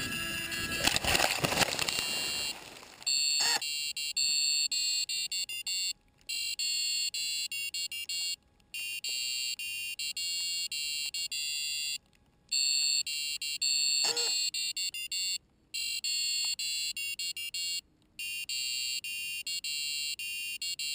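High-pitched electronic beeper alarm on an RC paratrike, sounding in rapid runs of beeps broken by short gaps. Before it starts, about three seconds of rustling noise with a few loud knocks.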